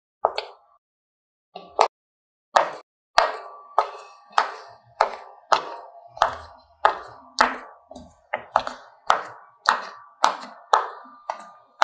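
Silicone pop-it fidget toy bubbles being pressed through one by one, each giving a sharp pop with a short ring. Two pops come in the first two seconds, then a steady run of about one every half second.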